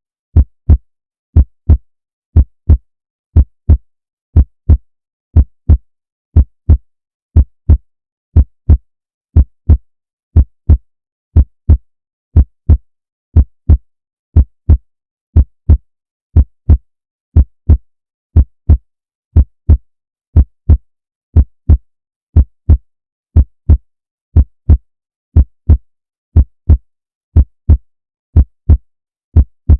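Heartbeat, a steady lub-dub: pairs of short low thumps close together, repeating about once a second with silence between.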